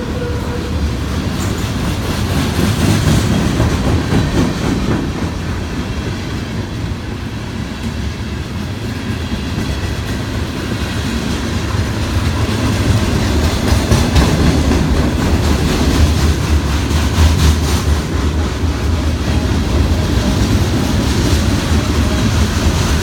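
Freight cars of a CN manifest train rolling steadily past, their steel wheels clattering over the rail joints in a continuous stream.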